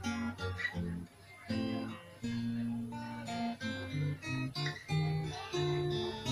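Acoustic guitar playing a melody of single picked notes, with a brief pause about a second in.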